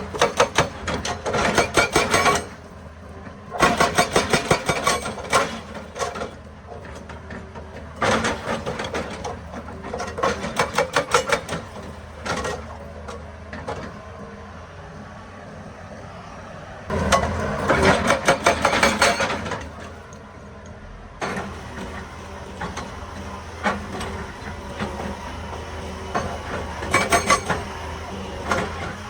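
Hydraulic rock breaker on a Hitachi EX200 excavator hammering rock in repeated bursts of rapid blows, each burst lasting one to two and a half seconds with short pauses between. The excavator's diesel engine runs steadily underneath.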